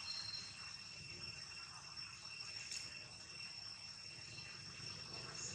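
Steady, high-pitched insect chorus, a continuous shrill drone that holds one pitch.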